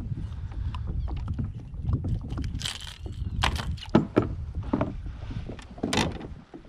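Irregular knocks and splashes in a fishing kayak, in a cluster a few seconds in and once more near the end, over a steady low rumble of wind on the microphone.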